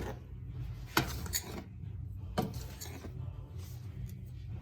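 A stirring utensil scraping and clinking against a large metal pan of blue cornmeal as it roasts, with a few sharp knocks against the pan, over a steady low hum.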